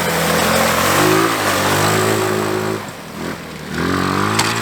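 Small vehicle engine revving up and easing off over and over, dropping back about three seconds in and climbing again near the end.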